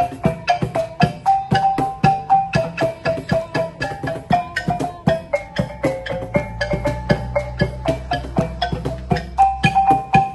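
Traditional Sabahan percussion ensemble playing a quick, steady rhythmic piece. A kulintangan gong-chime and a bamboo xylophone carry the ringing melody over bamboo tubes struck with flip-flops and a cajón.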